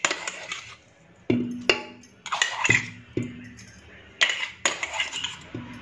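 A metal spoon knocking against an aluminium cooking pot, about eight sharp knocks with a short ring, several of them in pairs about half a second apart.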